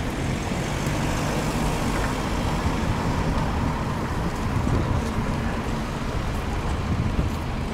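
A city bus driving past with its engine running, over steady street traffic noise.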